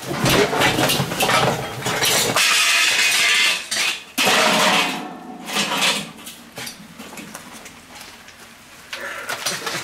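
Rummaging through a cardboard shipping box: cardboard rustling and scraping, with small clinks and knocks as items inside are moved. The rustling is loudest in the first half and gives way to quieter scattered clicks.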